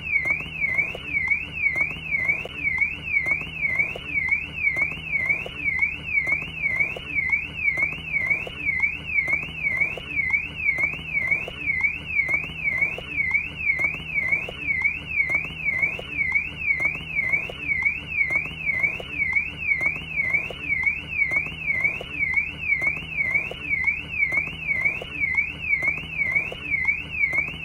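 Car alarm siren wailing continuously: a single high tone sweeping up and down over and over, about three sweeps every two seconds, without a break.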